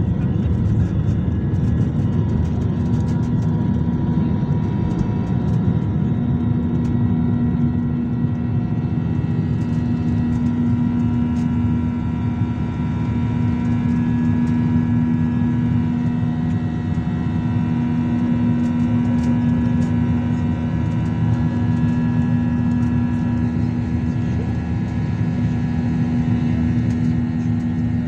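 An airliner's jet engines at takeoff power, heard from inside the cabin: a loud, steady rush with a droning hum. The rougher rumble of the wheels on the runway gives way about six seconds in as the plane lifts off and climbs.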